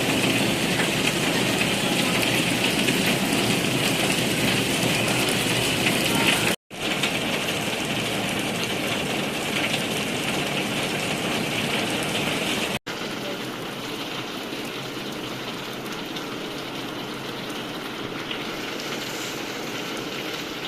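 Steady rushing noise like heavy rain, cut abruptly twice, and a little softer after the second cut.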